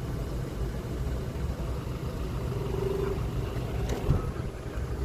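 Kubota combine harvester running with a steady low engine rumble, with a short knock about four seconds in.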